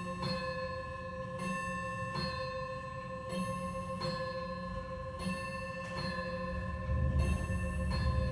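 Grandfather clock striking its bell over and over, about one stroke a second, each ringing on into the next.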